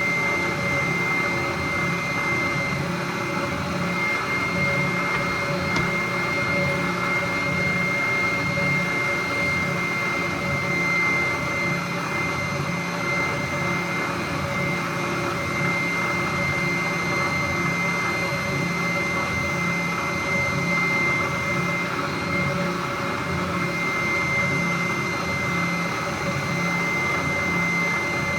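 Small stationary power sander running steadily while the edge of a cedar board is sanded, with an even motor whine.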